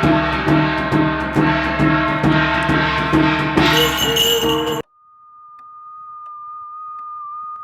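Korean shamanic ritual (gut) music: percussion with jingling bells beating steadily under sustained tones. It cuts off abruptly about five seconds in, and a single steady high tone slowly grows louder after it.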